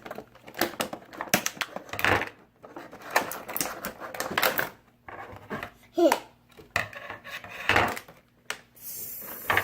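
Irregular clicks and knocks of hard plastic toy pieces and packaging being handled, with a short hiss of rustling near the end.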